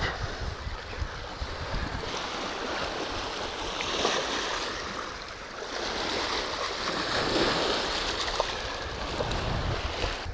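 Small waves washing against a riverbank, the noise swelling and easing every few seconds, with wind rumbling on the microphone.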